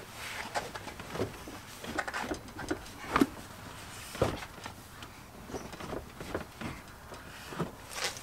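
Irregular knocks, clicks and rattles of a truck's loosened plastic dashboard and heater box being shifted and worked by hand, with a few sharper knocks about 3 and 4 seconds in and near the end.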